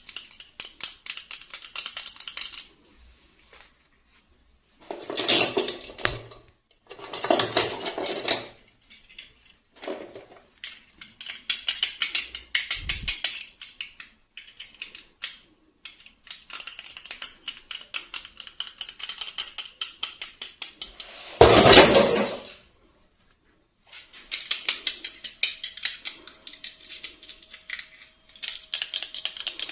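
Hands handling small plastic toy pieces and packaging: long runs of rapid light clicking and clattering, broken by a few louder rustling handling bursts, the loudest about two-thirds of the way through.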